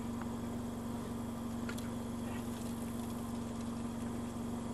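Toyota Corolla's four-cylinder engine idling steadily, an even hum with no change in pitch.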